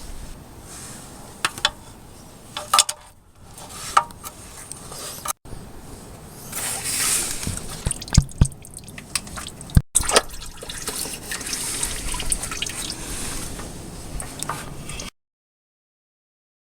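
Engine oil running and dripping into a pan or funnel, with scattered clicks and knocks; the sound breaks off abruptly twice and stops near the end.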